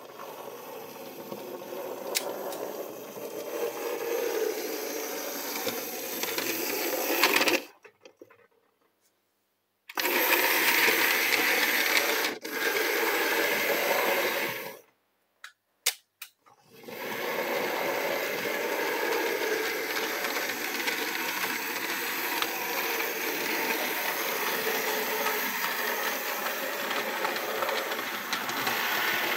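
Fleischmann 'Anna' model works locomotive running on model railway track, its small electric motor whirring with the rattle of its wheels. It grows louder over the first few seconds, stops dead twice, about eight seconds in and again about fifteen seconds in, then starts again. The stops and restarts are the back-and-forth of shunting moves, with a few sharp clicks around the second stop.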